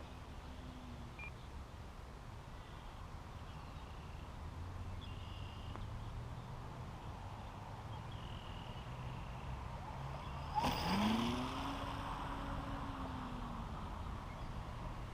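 RC plane's electric motor and propeller whining at a distance; about ten and a half seconds in there is a sudden knock, then the motor's pitch sweeps sharply up and slowly falls away over a few seconds, as in a touch-and-go.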